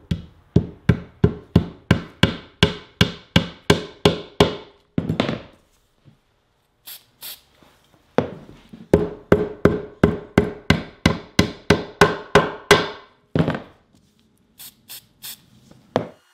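A small hammer taps 1/4-inch walnut dowel plugs into glued screw holes in an oak box, seating them flush. The taps come in quick, even runs of about three a second, with a pause in the middle, and there are a few lighter, sharper clicks near the end.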